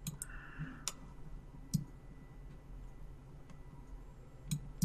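A few sharp, separate computer mouse clicks, about five spread unevenly over several seconds, picked up faintly by the desk microphone while colour values are set in a software colour picker.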